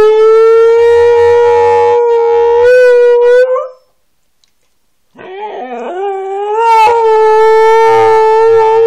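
Siberian husky howling: one long steady howl that ends about three and a half seconds in, then after a second-long pause a second howl that wavers as it starts and settles into a long held note.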